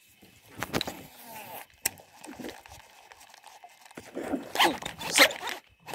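Baitcasting reel being worked on a cast-and-retrieve: rasping runs of the spinning spool and cranked handle, a sharp click near two seconds in, and a longer stretch of cranking from about four seconds in.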